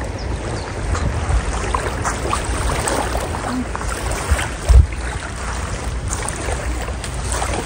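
Wind blowing on a phone microphone at a lake shore, with small waves lapping, and one stronger gust about five seconds in.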